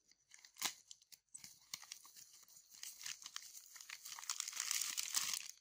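Yellow parcel envelope being torn open and crinkled by hand: scattered sharp crackles, then a denser stretch of tearing and rustling in the second half.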